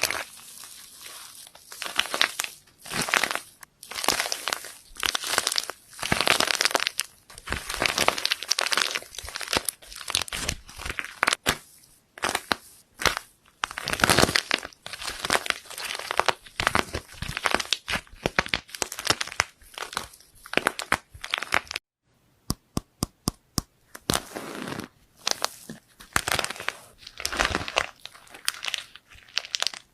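Slime being squeezed, stretched and pressed by hand, with repeated wet, crackly squishes. About two-thirds of the way in comes a quick run of sharp clicking pops.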